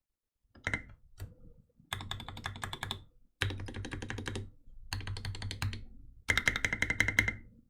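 Typing on a Canoe mechanical keyboard with lubed Gateron Ink Black linear switches in an aluminium plate, under SA-profile keycaps. The rapid keystrokes come in five bursts with short pauses between them, starting about half a second in.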